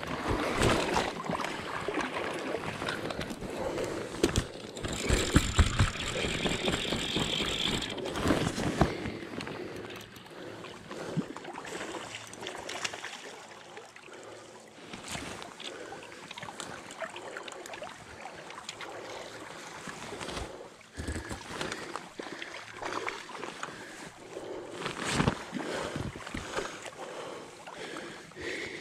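Water splashing and sloshing around a hooked king salmon in shallow river water. It is busiest in the first nine seconds, with a few sharp knocks, then settles into a quieter wash of moving water.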